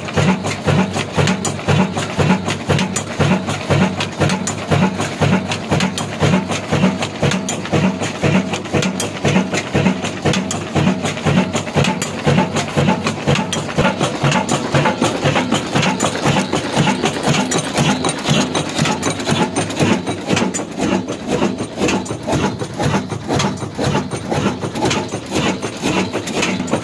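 Old stationary diesel engine with large flywheels running steadily, its exhaust and mechanism beating in an even rhythm.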